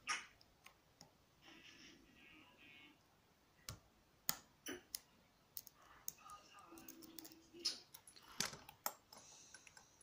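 Faint, scattered metallic clicks and scrapes of a lock pick and tension wrench working inside the keyway of a small brass Squire padlock, with a few sharper clicks in the second half.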